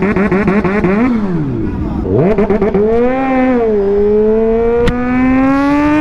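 Several motorcycle engines revving together, their pitches sweeping up and down and overlapping. About two seconds in, a single motorcycle engine takes over, accelerating with its pitch climbing steadily, dropping briefly near four seconds in and then climbing again.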